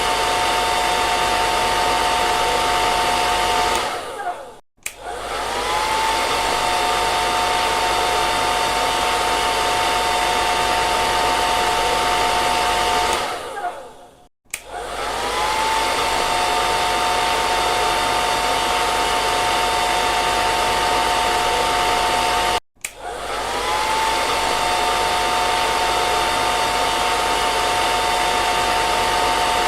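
Hair dryer blowing steadily: a rushing of air over a motor whine. It stops and starts again three times, and each time the whine rises back up to speed.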